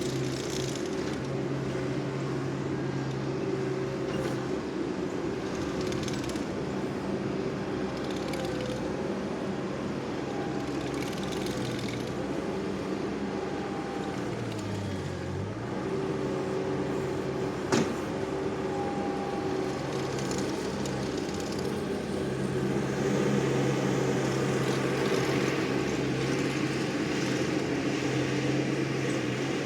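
ASV RT-40 compact track loader's engine running steadily. About 14 to 15 seconds in it dips in pitch and recovers, as under a passing load. A single sharp knock comes near 18 seconds in.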